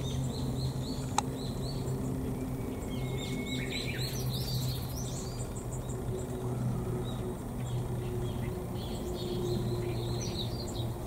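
Wild birds chirping and calling in woodland, in scattered runs, over a steady low hum. A single sharp click comes about a second in.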